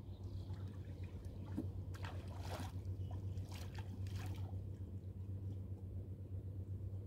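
River water splashing at the side of a wooden fishing boat as a fisherman works a rope line over the side, with several splashes between about one and a half and four and a half seconds in. A steady low hum runs underneath.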